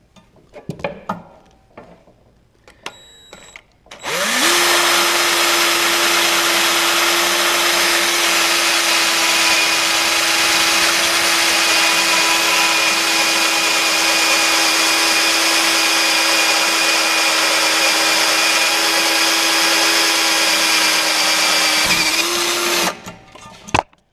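Cordless drill boring through a metal impeller paddle on a snowblower. After a few light clicks, the drill starts about four seconds in, quickly spins up to a steady speed, and runs for almost twenty seconds as the bit cuts into the metal, then stops suddenly near the end.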